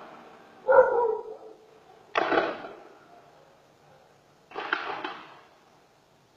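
Gunfire in three bursts about two seconds apart, each a quick cluster of sharp shots with a short echo; the last burst is a rapid string of several shots.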